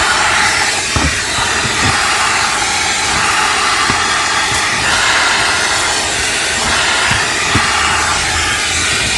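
Vacuum cleaner motor running steadily, with a few light knocks about one, four and seven and a half seconds in.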